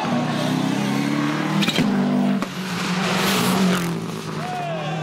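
Rally car engine running hard at high revs, with a sharp crack a little under two seconds in and a pitch that sweeps down near the end.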